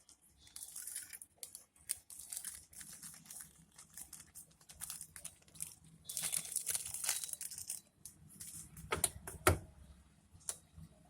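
Packaging crinkling and rustling as it is handled, with irregular clicks. There is a longer rustling rush about six seconds in, and two dull knocks about nine seconds in.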